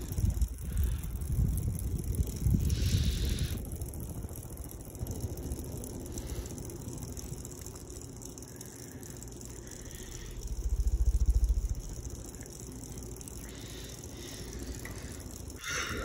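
Harbor Breeze Classic ceiling fan running fast, its blades pushing a low rumbling rush of air that swells and fades. It is loudest early on and again about eleven seconds in.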